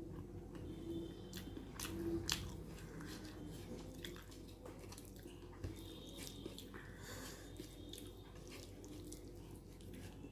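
Close-miked eating: chewing and biting, with scattered short mouth clicks and smacks.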